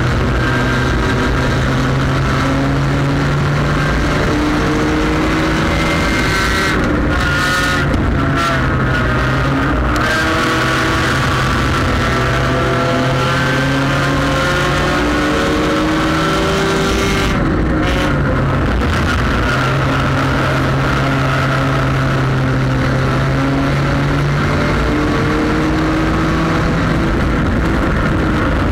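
Front-wheel-drive sport compact race car's engine heard from on board, running hard under racing load, its pitch rising and falling as the throttle is worked through the turns, over steady wind and road noise.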